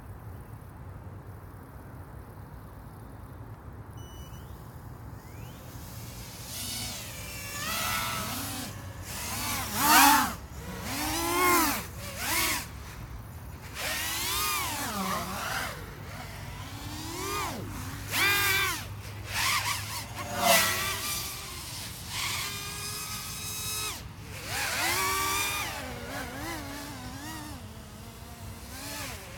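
Small FPV racing quadcopter's motors whining, the pitch sweeping up and down with the throttle in repeated swells that come and go as it flies around the course. The whine starts a few seconds in, after faint steady background noise.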